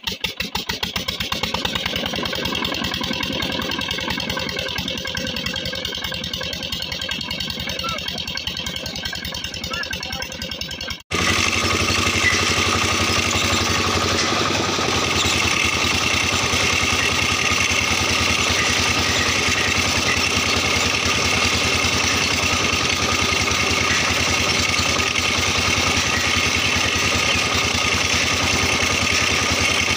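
A 7 hp diesel pump-set engine catching and running steadily just after being started. About eleven seconds in the sound cuts abruptly to a louder mix of the running engine and water gushing from the outlet pipe and splashing into a concrete tank.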